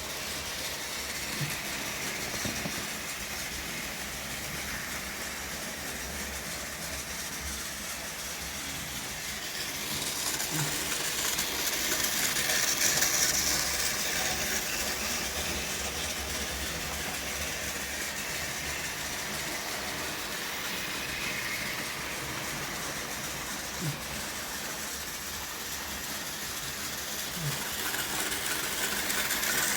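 OO gauge model trains running around the layout: a steady whirring rattle of motors and wheels on the track, swelling louder for a few seconds about a third of the way in as a train passes close. There are a few faint clicks.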